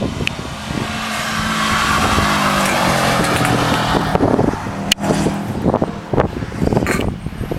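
A track-day car passing at speed, its engine note sweeping down in pitch as it goes by. Wind buffets the microphone throughout, and there is a sharp click about five seconds in.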